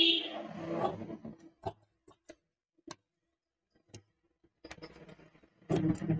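Large tailor's shears cutting through blouse fabric on a table. Busier stretches of cutting and handling noise come at the start and again near the end, with a few separate sharp snips of the blades in between.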